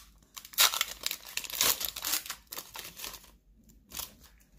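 Foil wrapper of a Pokémon card booster pack crinkling and tearing as it is ripped open by hand and the cards are pulled out. It comes in irregular crackly bursts, loudest in the first two seconds and thinning out after about three seconds.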